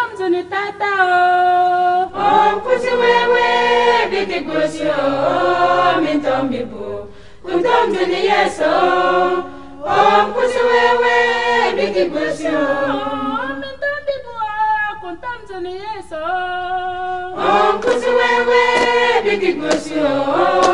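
Choir singing a Wimbum gospel song in the Limbum language, in sung phrases with brief breaks between them.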